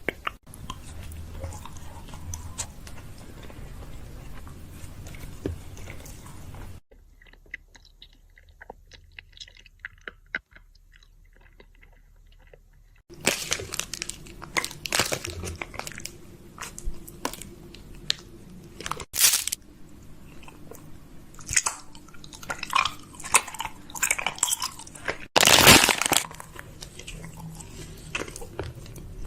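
Close-miked crunching and crackling. A quieter stretch of scattered small clicks runs from about 7 to 13 seconds, then the crunching grows dense again, with its loudest burst a few seconds before the end.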